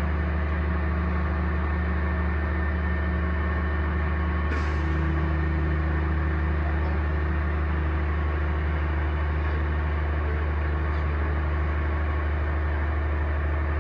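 Heavy engine running steadily with a deep drone, its pitch dropping slightly about four and a half seconds in, when a brief hiss is heard.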